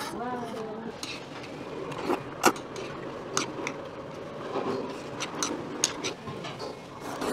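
Eating sounds: ganjjajang noodles being slurped and chewed, with chopsticks clicking and tapping against the bowls in a scattering of sharp clicks, the loudest about two and a half seconds in.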